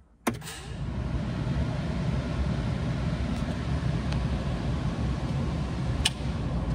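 Skid loader cab's ventilation blower switching on with a click, then running as a steady rush of air that builds over about a second.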